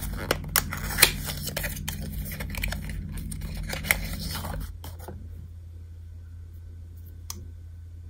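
Small cardboard ink box being handled and opened and a glass fountain pen ink bottle taken out of it: rustling and scraping of card with several sharp clicks for about four and a half seconds, then quiet apart from a single tick.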